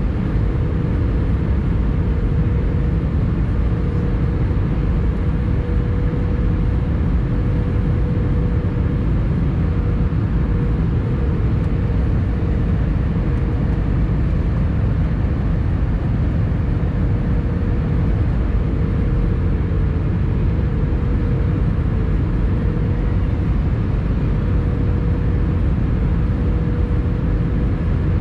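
Airbus A320 cabin noise in flight: the steady rush of air and drone of its CFM56 engines heard from a window seat, with a faint steady hum running through it.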